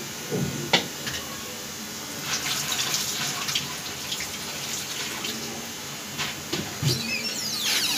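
Onion and gram-flour pakoras sizzling and bubbling as they deep-fry in hot oil, a steady hiss with scattered crackles. A sharp click comes about a second in, and there are a few soft knocks.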